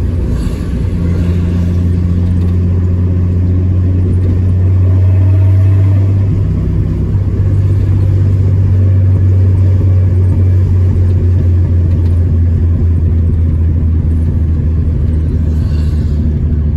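Chevrolet A20 pickup's six-cylinder alcohol engine pulling under load, heard from inside the cab as it is driven through the gears of its newly fitted original gearbox. The engine note swells, then changes about six seconds in.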